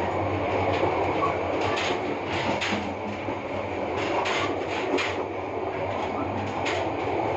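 A train running on rails: a steady rumble with irregular sharp clicks.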